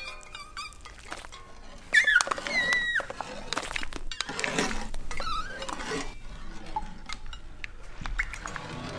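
Animated-film soundtrack: clinks and clatters like glass and dishes over light music, with a short high sliding tone about two seconds in.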